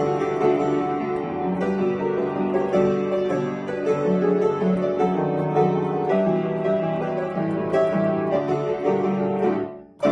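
Upright piano playing a lively arrangement of a children's tune, notes running continuously; near the end the sound drops away briefly and the playing resumes.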